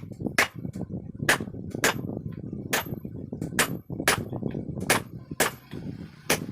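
Hammer striking a stand fan motor's shaft to drive it out of the rotor: about ten sharp blows at an uneven pace. The shaft is being removed because it and its bearing are worn, which made the fan run with a helicopter-like noise.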